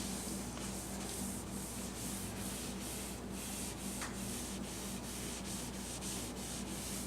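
Lens clarifying compound being rubbed by hand onto a plastic headlight lens, a steady back-and-forth rubbing at about two strokes a second.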